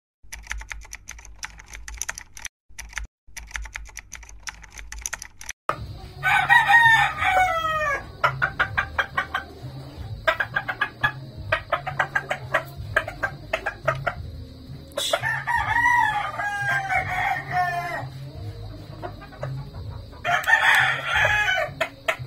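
Keyboard-typing sound effect clicking rapidly for about the first five seconds, then a pumpkin hatch henny gamecock crowing three times, each crow falling in pitch, with more typing clicks between the first two crows.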